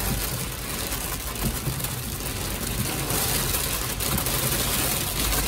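Hail and heavy rain drumming on a car's roof and windshield, heard from inside the cabin: a dense, continuous patter of small impacts over the low hum of the car.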